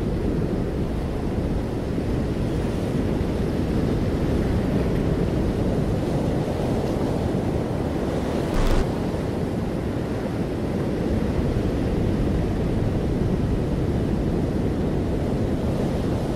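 Heavy surf from giant breaking waves and whitewater, a low, steady rush with wind buffeting the microphone. A short, louder burst comes about halfway through.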